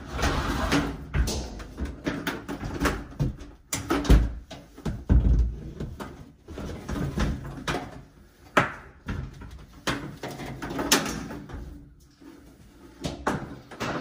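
Irregular knocks, bumps and scraping as a blower is wedged against the dryer vent behind a clothes dryer and the dryer is pushed back to hold it. There are two heavy low thumps about four and five seconds in. The blower is not yet running.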